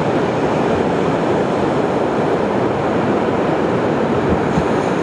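Steady, even rushing roar of ocean surf and wind at the shore.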